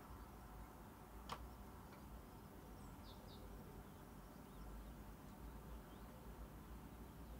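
Near silence: quiet room tone with a low hum, one faint click a little over a second in, and two faint short high chirps about three seconds in.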